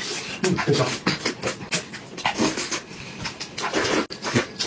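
Close-up chewing and lip-smacking of a person eating braised pork: an irregular run of short mouth sounds.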